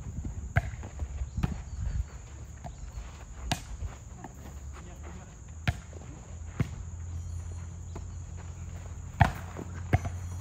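A volleyball being hit in play: sharp smacks at irregular intervals, about seven in all, the loudest near the end. A steady high insect chorus runs behind.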